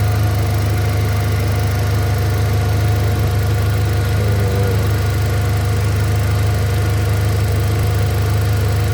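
Hyundai Accent gasoline engine idling steadily with no misfire, the radiator cooling fan running with it: the car that cranked without starting now runs smoothly.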